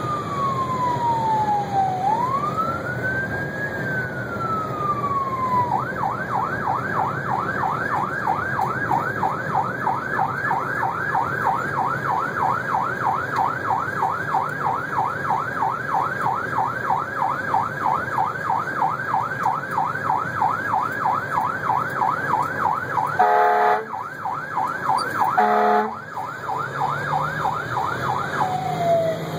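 Electronic siren of a Horton Type I rescue truck on an International chassis running code 3, heard from inside the cab: slow wail sweeps for about six seconds, then a fast yelp. The yelp is broken twice by short horn blasts about 23 and 25 seconds in, and the siren winds down near the end, over the steady rumble of the truck's engine.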